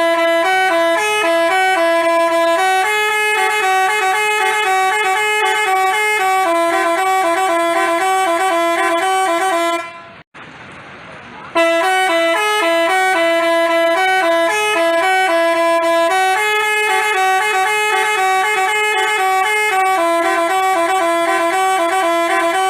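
Basuri telolet multi-tone horn playing a fast tune of stepped, alternating notes. It breaks off about ten seconds in for a second and a half, then plays the tune again.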